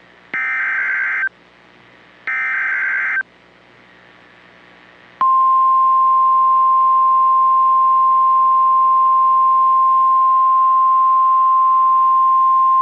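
NOAA Weather Radio alert signal: two roughly one-second bursts of warbling SAME digital header tones about a second apart, then, after a short gap about five seconds in, the steady single-pitch 1050 Hz warning alarm tone, which holds on. The sequence opens a new warning broadcast, here a tornado warning.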